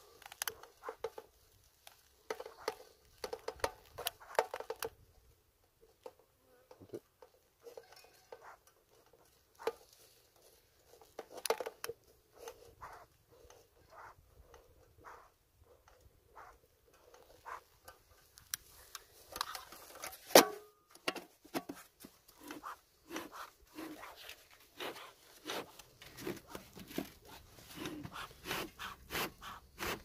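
Irregular rustling, crumpling and scraping with many scattered clicks as a beekeeper's smoker is lit and its fuel packed in, with one sharp snap about two-thirds of the way through.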